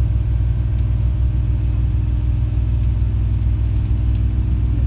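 Steady low rumble heard inside a passenger diesel multiple unit running at speed: engine and wheels on the rails, with a faint steady hum above it.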